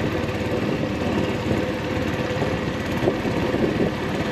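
Motorboat engine running steadily under way, a constant drone.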